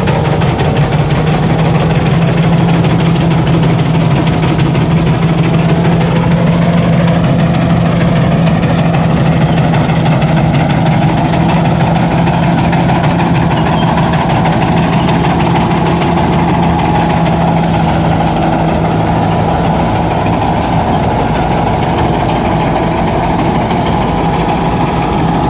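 Combine harvester's engine and machinery running steadily, a constant low hum with a faint high whine over it.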